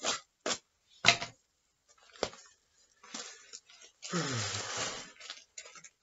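Bubble wrap and packing paper being handled, crinkling in short sharp bursts, with a longer rustle about four seconds in that has a low sound falling in pitch under it.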